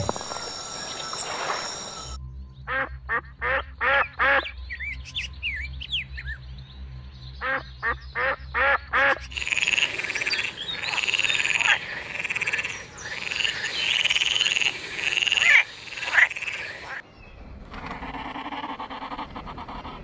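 A frog croaking in two short runs of quick, evenly spaced calls, followed by a denser stretch of overlapping, higher-pitched calls. A low rumble is heard in the first two seconds.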